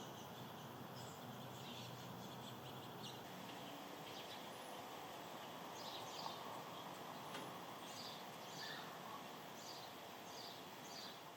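Faint, short, high chirps from a small animal, repeating irregularly over a steady background hiss.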